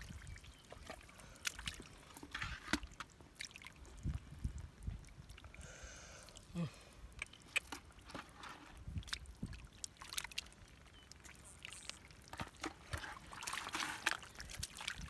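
Hands sloshing and squelching through shallow muddy water and soft mud, with irregular small splashes and wet slaps.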